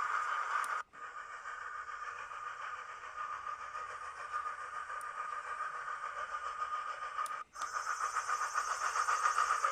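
Recorded train sound effects played back by a model-railway command station's MP3 sound board through a small speaker, thin with no bass. Playback cuts out briefly about a second in and again near the end as the next clip starts.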